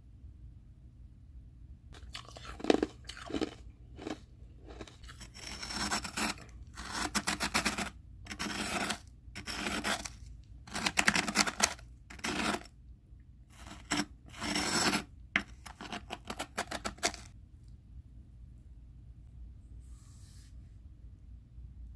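Crunching of foam ice being bitten and chewed close to the microphone, in a series of crunchy bursts about a second long with short pauses between them.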